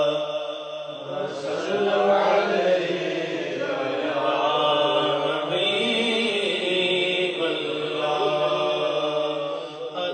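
A man singing a devotional Siraiki naat into a microphone, a solo chanted melody with long held, wavering notes and short breaths between phrases.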